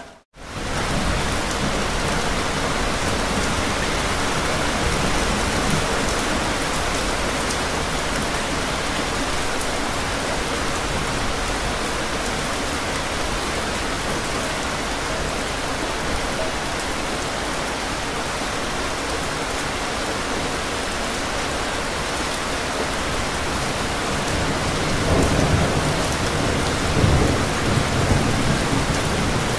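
Steady heavy rain. The sound drops out for a split second right at the start, and in the last few seconds a low thunder rumble swells, loudest a couple of seconds before the end.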